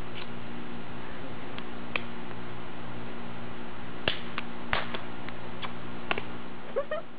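Hands clapping, slapping and snapping through a rehearsed two-person handshake: about nine sharp claps and snaps, a few early and a quick run of them around the middle, over a steady background hum.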